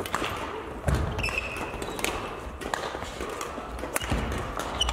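Badminton rally: sharp racket strikes on the shuttlecock and heavy footfalls on the court floor, two of them thudding loudly about a second in and near the end, with a couple of short high shoe squeaks.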